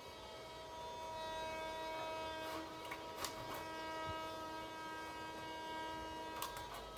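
A motor running at a steady, unchanging pitch, a hum of several tones, with a few sharp clicks or snaps over it.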